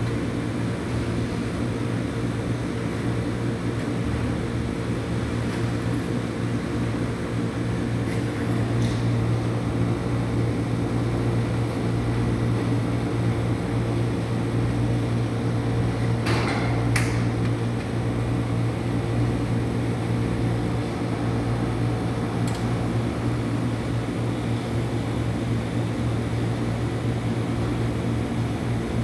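Steady low hum of refrigeration machinery, the kind that runs under a rolled-ice-cream cold plate. A few short clicks and scrapes of a metal spatula on the steel plate cut through it, the loudest a pair about two-thirds of the way in.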